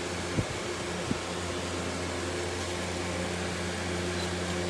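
A steady mechanical hum, like a running fan or small electric motor, with two short knocks, about half a second and a second in.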